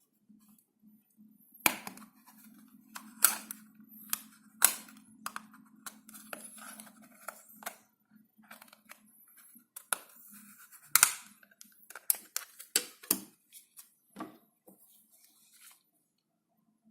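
A QMobile SP3000 phone and its box or parts being handled: an irregular string of sharp clicks and taps, with a low steady hum under the first half.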